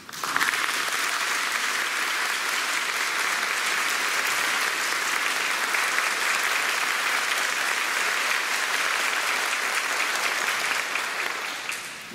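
Audience applause in a concert hall, greeting the conductor as he walks on stage. It starts suddenly, holds steady, then dies away near the end.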